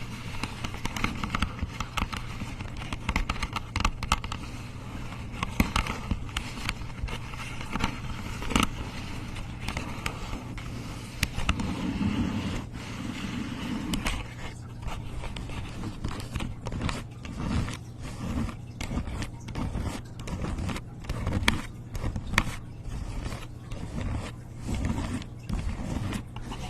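Close-microphone ASMR trigger sounds: rapid scratching and crackly tapping clicks. About halfway through they settle into an even rhythm of strokes, a little more than one a second.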